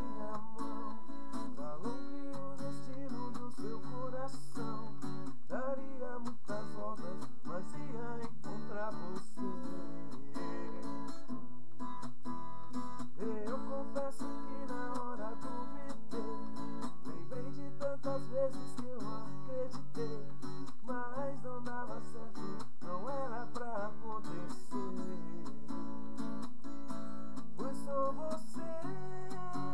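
Acoustic guitar strummed continuously as accompaniment while a man sings a song.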